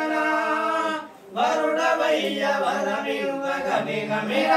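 Voices singing a Telugu devotional mangala harathi (aarti) song to Vinayaka, with long held notes and a short break about a second in.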